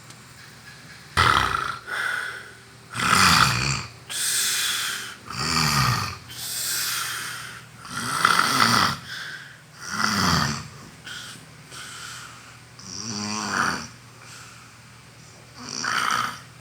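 A sleeping person snoring loudly, a run of snores on breaths in and out, one about every second, starting about a second in and coming more sparsely in the last few seconds.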